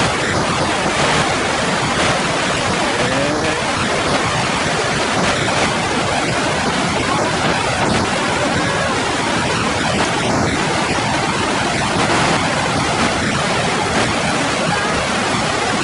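Steady, loud rushing noise with no breaks or distinct events, of the kind made by moving water or wind.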